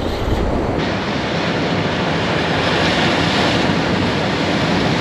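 Sea surf breaking against a rocky shore: a steady rush of whitewater, swelling around three seconds in as a wave hits the rocks.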